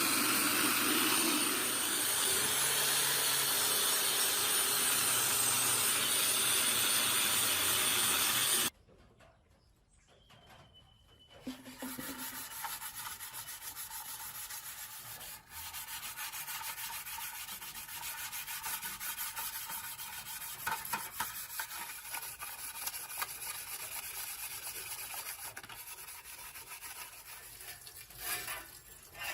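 A machine runs with a steady loud hiss and whine, cutting off sharply about nine seconds in. After a short lull comes steady abrasive rubbing, like sanding by hand, with fine rapid scratchy strokes.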